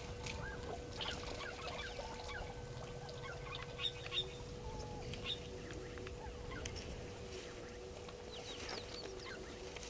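Birds chirping and calling in short, scattered chirps, busiest about four seconds in and again near the end, over a steady faint hum.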